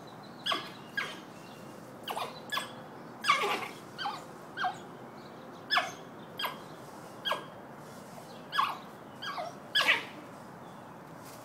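African wild dogs squeaking and twittering while they feed at meat: a string of short, high-pitched calls, each falling in pitch, about one or two a second, some in quick clusters.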